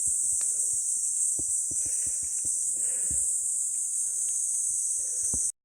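A steady, high-pitched chorus of insects singing in the undergrowth. Under it are irregular soft footsteps and rustles of someone walking through brush. The sound cuts off abruptly near the end.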